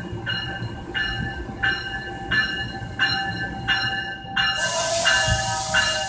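New Jersey Transit train passing on the near track, its rumble under a bell ringing steadily, about three strokes every two seconds. About four and a half seconds in, a loud burst of air hiss joins for over a second.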